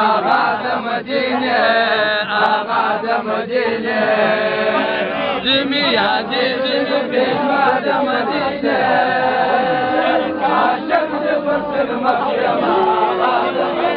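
A crowd of many voices chanting together in a devotional sung refrain, steady and unbroken, with the voices overlapping.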